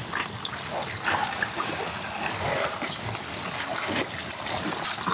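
Stream of water pouring onto cut jackfruit slices and splashing, while hands rub and rinse the pieces.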